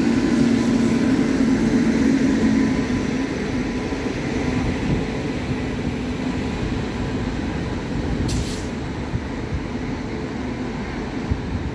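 Passenger train coaches rolling past on the adjacent track: a steady rumble of wheels on rails. The electric locomotive's hum fades after the first few seconds, and there is a short hiss about eight seconds in.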